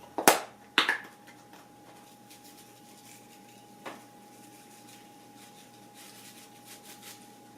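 Two sharp clicks in the first second and a softer one about four seconds in, then quiet room tone with a faint steady high hum.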